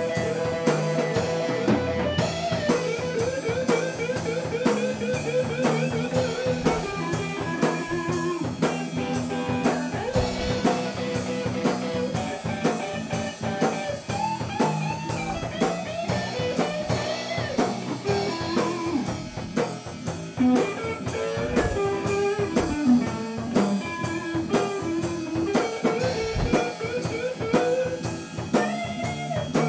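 Blues-rock band playing an instrumental passage: an electric guitar plays a lead line with bending notes over a drum kit keeping a steady beat.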